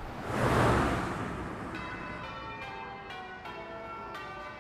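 A swelling whoosh, then church bells ringing in a quick, even run of strikes, about three or four a second, as in change ringing.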